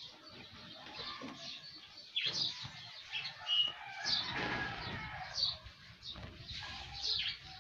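Small birds chirping repeatedly in short high calls, with bursts of rustling noise about two seconds in and again around four to five seconds.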